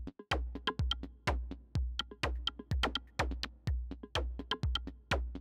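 Electronic intro music with a steady drum-machine beat, deep kicks about twice a second and sharp clicky hits between them.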